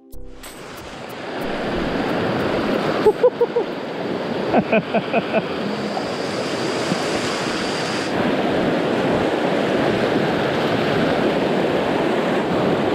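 Creek rapids: fast, shallow water rushing steadily over rocks, loud and close. A few short pitched chirps cut through it about three seconds and five seconds in.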